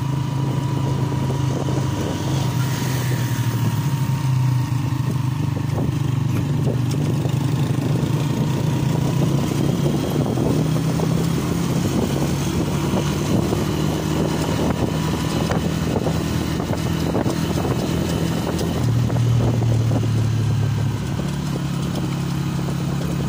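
Small motorcycle engine running as it rides along a road. The engine note holds steady and shifts in pitch a few times as the speed changes.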